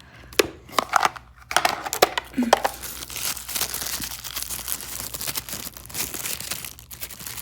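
Packaging crinkling and tearing as a UV nail lamp is unwrapped: a few sharp crackles in the first couple of seconds, then steady dense crinkling.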